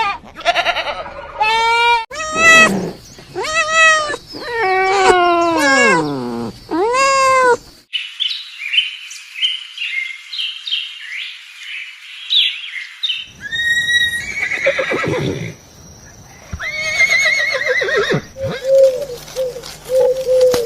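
Farm animals calling in a string of separate short clips. The first half has repeated pitched cries that rise and fall. A few seconds of rapid, high chirping follow, then another cry and a series of short, evenly repeated calls near the end.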